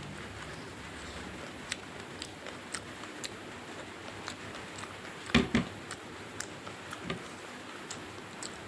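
Close-up eating sounds: scattered small wet clicks and smacks of chewing, with two louder bursts close together a little past halfway.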